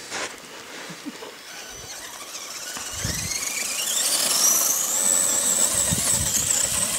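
Radio-controlled off-road car's motor whining under throttle, climbing steeply in pitch and getting louder over the first few seconds, then held high and steady as its wheels spin in loose sand. A couple of low thuds come in between.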